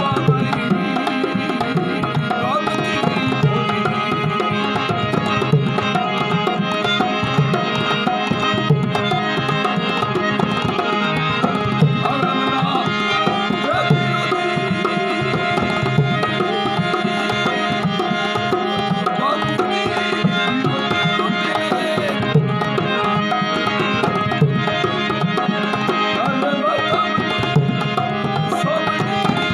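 Marwari folk song music: a hand drum plays a steady rhythm under a sustained melodic accompaniment.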